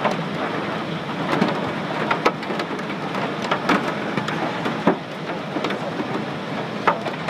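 Rain and hail striking an airliner's fuselage, heard from inside the cabin: a steady patter with sharp knocks at irregular intervals, a few of them much louder than the rest.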